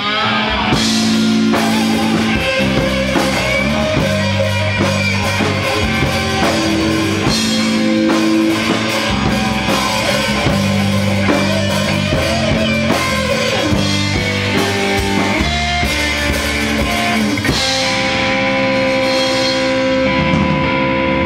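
Live rock band playing an instrumental passage on electric guitar, bass guitar and drum kit, loud and dense. About eighteen seconds in, the drumming thins out and held notes ring on.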